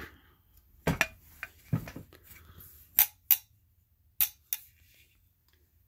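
Stainless steel grilling tongs being handled and worked open and shut: a series of about six short, sharp metal clicks.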